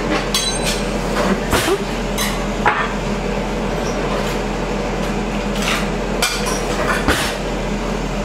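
Ninja Foodi Max multicooker running with a steady whir and hum while cooking, with about seven short clinks and knocks of kitchenware spread through it, some with a brief ringing.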